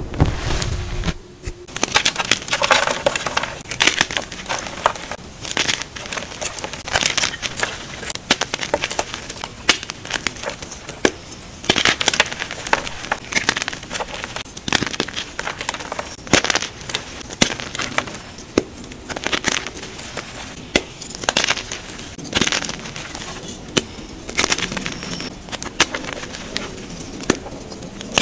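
Hands crushing and breaking soft blocks of dyed gym chalk: dry, crumbly crunches in irregular bursts, with powdery crackling between them.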